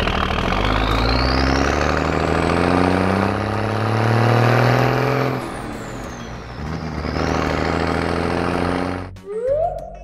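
Heavy truck engine accelerating, its note and a high whine climbing together. The pitch drops about five seconds in, like a gear change, then climbs again before cutting off about nine seconds in. A short sliding tone follows near the end.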